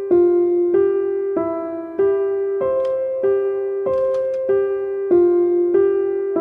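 Background music: a gentle electric-piano melody, one even note after another about three every two seconds.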